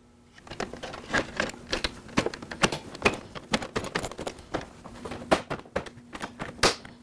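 Plastic dash console of a Can-Am Spyder F3 Limited being pressed down into its mounts by hand: a run of irregular clicks and taps of plastic on plastic as its clips seat.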